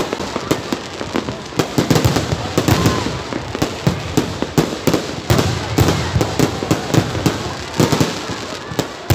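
Aerial fireworks shells bursting overhead: a dense, irregular run of sharp bangs and pops with no let-up.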